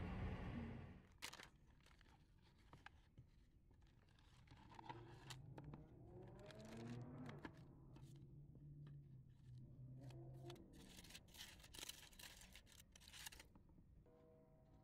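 Aluminium foil crinkling and crackling as it is peeled open from a wrapped hot dog, in quick irregular crackles.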